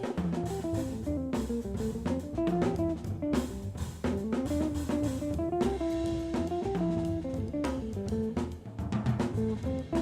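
Jazz combo playing: a guitar melody over a walking bass line and a drum kit.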